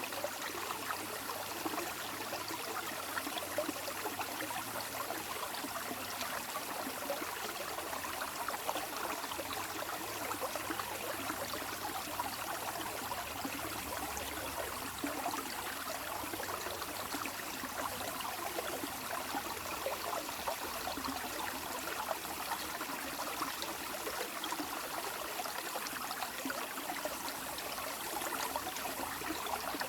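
Running water flowing steadily, a continuous babble of many small splashes and gurgles.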